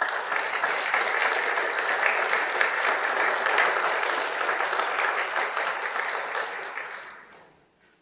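Audience applauding: a full round of clapping that fades away about seven seconds in.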